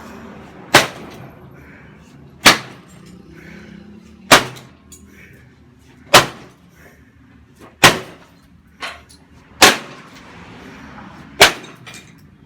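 A small lawnmower engine being struck hard over and over, seven heavy metal-on-metal blows about every two seconds, with a smaller knock between two of them.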